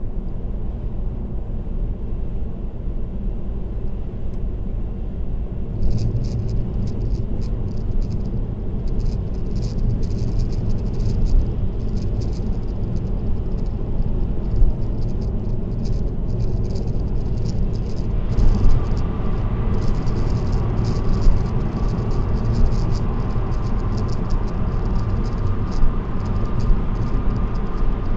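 Steady road and tyre rumble of a car cruising on an expressway, heard from inside the car. From about six seconds in, a quick light rattling joins it, and a faint steady whine comes in about two-thirds of the way through.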